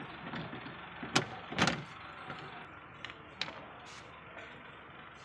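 Hands working inside a car door around the window regulator and its plastic moisture barrier: a few light clicks and knocks, the two loudest about a second in and half a second apart, then fainter ones.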